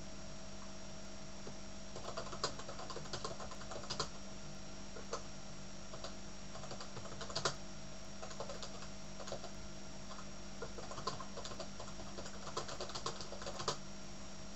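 Typing on a computer keyboard: irregular runs of key clicks that start about two seconds in, over a steady hum.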